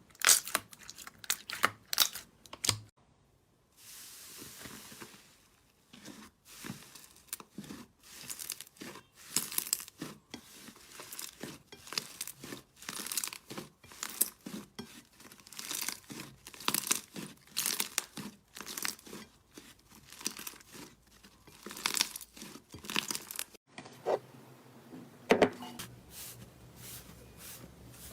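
Slime being pressed and stretched by hand, giving a run of short crackling, popping bursts, about one or two a second, with a few abrupt changes where one clip cuts to the next.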